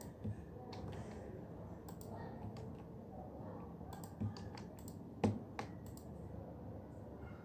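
Typing on an office computer keyboard: irregular key clicks, with a few heavier strokes, the loudest a little after five seconds in.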